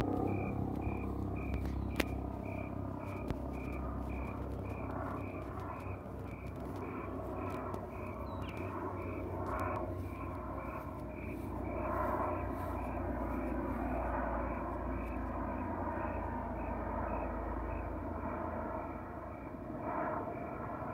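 Bell 429 GlobalRanger twin-engine helicopter flying past, a steady low rotor and turbine rumble that swells and eases a little as it goes by. A sharp click about two seconds in.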